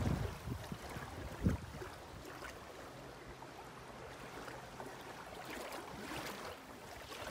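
Wind buffeting the microphone over the wash of shallow water, with strong low gusts at the start and again about a second and a half in, then settling to a steadier rush.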